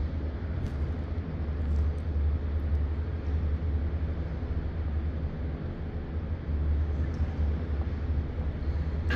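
Steady low rumble with a soft hiss: the ambience of an indoor swimming pool hall.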